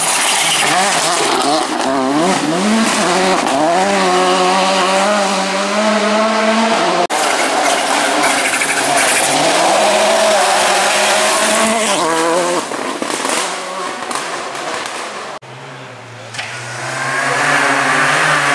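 Volkswagen Polo rally car's engine revving hard on a gravel stage, its pitch climbing and dropping again and again through gear changes as it passes close by. About three seconds before the end a different car takes over: a Renault Clio rally car approaching, its engine rising in pitch.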